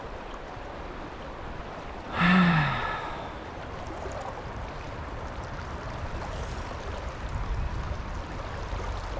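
Steady rush of fast river water. About two seconds in, a person gives a short voiced exclamation that falls in pitch.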